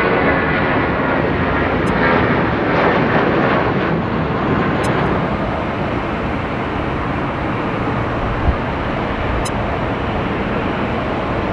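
Airbus airliner jet engines: a whining fan tone over a loud rumble, some of it falling in pitch in the first few seconds, then about five seconds in a steadier, even jet rumble from a second airliner. A brief low thump comes about eight and a half seconds in.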